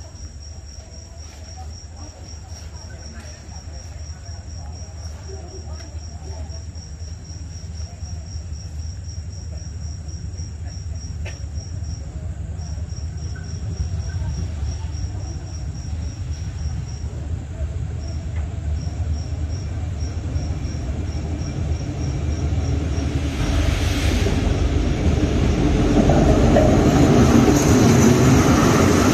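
An approaching diesel-electric passenger train, its low rumble growing steadily louder until the orange locomotive runs past at the platform, with a brief hiss about three-quarters of the way through. Crickets chirp in a steady high pulse until the train drowns them out.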